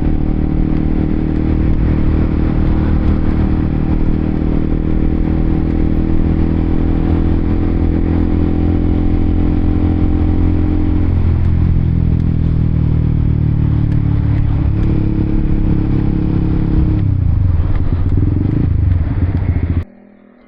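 Honda CBR motorcycle engine running while riding. The engine note drops in pitch about halfway through and again later as the bike slows. The sound cuts off abruptly near the end.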